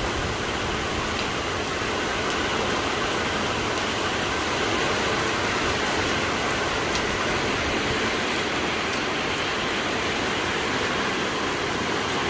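Heavy downpour: dense, steady rain pouring down, with scattered drop impacts.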